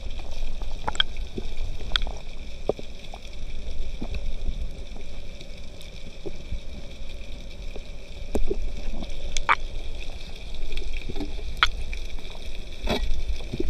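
Underwater sound picked up through an action camera's waterproof housing: a steady low rumble of moving water, with scattered clicks and knocks throughout.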